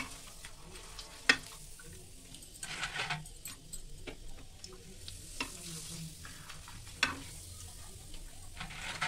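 Potato papad frying in hot oil in a non-stick kadai, a steady sizzle, while metal tongs turn and lift the papad. Two sharp clicks of the tongs against the pan, about a second in and again near the end.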